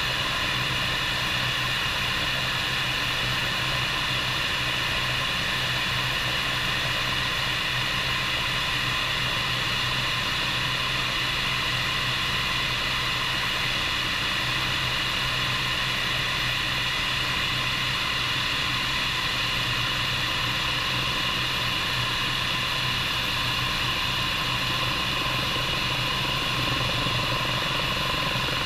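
Bell 430 helicopter's twin turboshaft engines and rotor running steadily, a high turbine whine over a low rotor hum.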